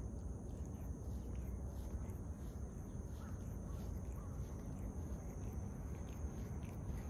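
A cat licking its fur while grooming, heard as faint, irregular wet licking clicks, over a steady low rumble and a steady high whine.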